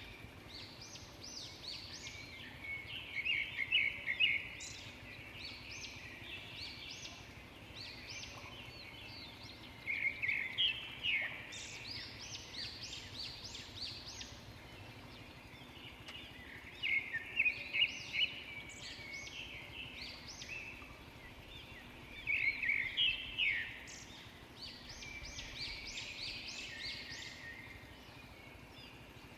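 Wild birds singing and calling, with a loud bout of quick, high repeated notes every six or seven seconds over a steadier chorus of chirps.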